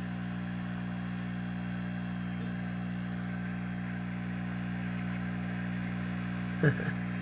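Steady electrical hum with a low buzz, unchanging throughout.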